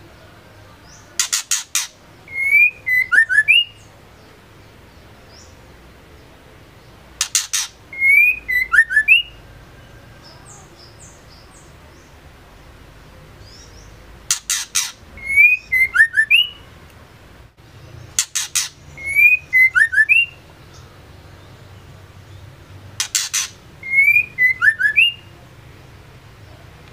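Female white-rumped shama calling five times in near-identical phrases: a quick run of sharp clicks followed by a few fast whistled notes that glide up and down.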